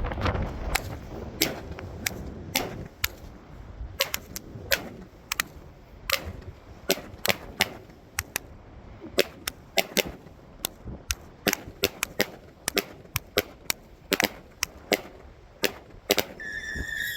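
Fireworks crackling: dozens of sharp cracks and pops at an irregular few a second. A high whistling tone starts just before the end.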